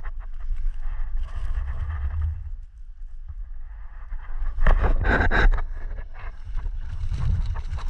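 Wind buffeting the microphone during a descent on snow, with skis or board hissing and scraping over the snow. About five seconds in comes a loud burst of snow scraping and spraying, as from a hard turn.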